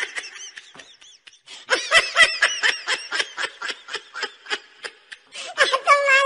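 A person laughing in quick, repeated giggles, fading mid-way and louder again near the end.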